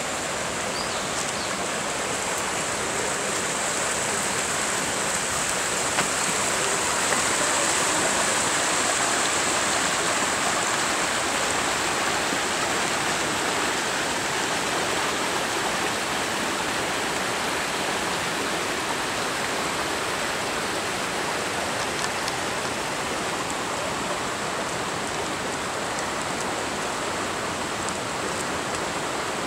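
River water rushing over rock ledges and rapids in a rocky gorge: a steady rush of water, swelling slightly a quarter of the way in.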